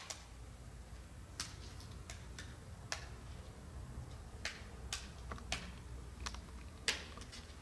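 Thin Christmas wafers (opłatek) being snapped and broken, a dozen or so sharp, irregular light clicks and cracks over a low steady hum.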